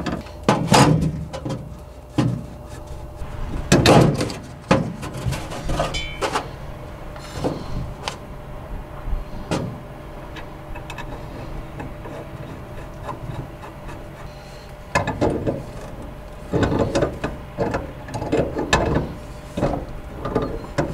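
Pliers working a copper propane line's fitting and a brass cap being threaded on to cap off the line: scattered metallic clicks, knocks and scraping. They are busiest about a second in, around four seconds and again from about fifteen seconds on.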